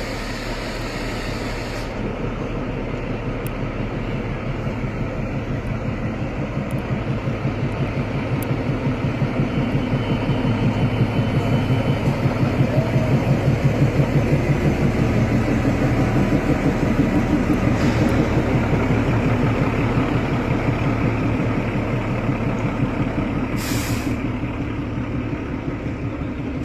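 Narrow-gauge diesel train pulling in: the locomotive's engine runs with a fast, even beat that grows louder as it passes and is loudest midway, then eases as the coaches roll by. A short hiss of air comes near the end.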